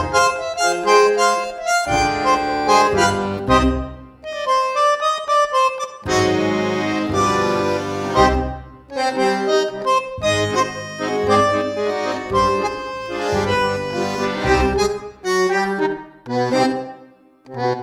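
Background music: a melody of held and changing notes over a rhythmic bass.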